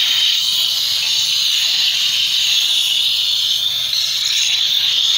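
Aerosol spray cleaner blasting continuously through its straw nozzle onto a CVT gear-oil filter to flush it clean: a loud, steady hiss that cuts in suddenly.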